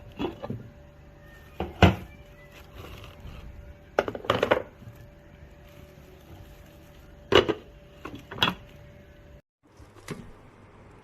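Knocks and clatter of the parts of an electric frying-pan multicooker being handled and set down, over a faint steady hum. The hum cuts off suddenly near the end.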